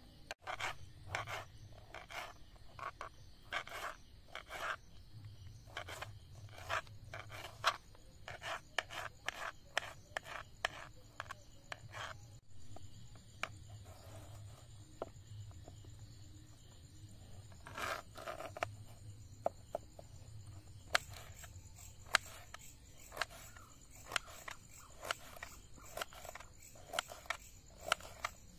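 Kitchen knife chopping on a wooden cutting board: an irregular run of sharp taps as a tomato is sliced, then a carrot is halved and diced. A steady high whine joins about two-thirds of the way through.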